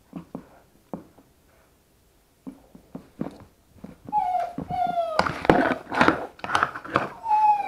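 Puppies chewing and mouthing a small action camera: scattered clicks and knocks against its casing, then from about four seconds in a busy clatter mixed with short, high puppy whimpers that slide slightly down in pitch.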